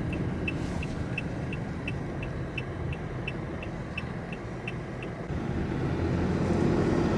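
Car cabin noise: a steady low engine-and-road rumble with a light, regular ticking, about three ticks a second, that stops about five seconds in. The rumble grows louder near the end as the car pulls away from the toll gate.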